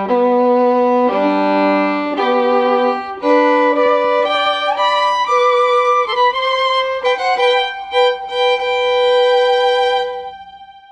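Background music: a solo violin melody, a few long held notes and then quicker ones, ending on a long note that fades away near the end.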